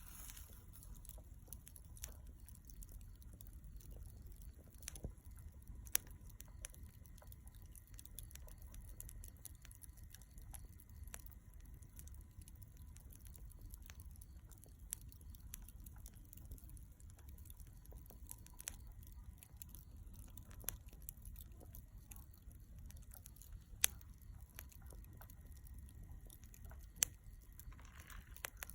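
Charcoal burning in a shichirin clay grill, crackling with scattered sharp pops and ticks over a faint low rumble; the loudest pops come about six seconds in and twice more near the end.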